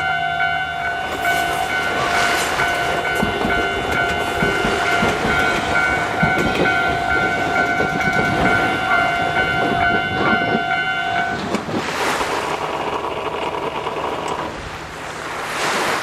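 Japanese level-crossing warning bell ringing steadily while an Iyo Railway Takahama Line electric train rolls past, its wheels clacking over the rail joints. The bell stops about eleven seconds in, leaving a rushing noise.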